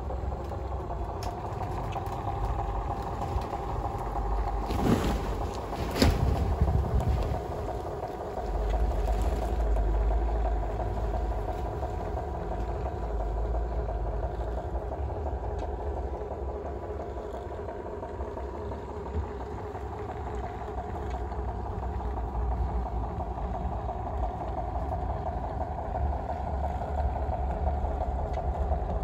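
Garden-railway model diesel locomotive running: a steady engine-like drone with several held tones, and two sharp knocks about five and six seconds in.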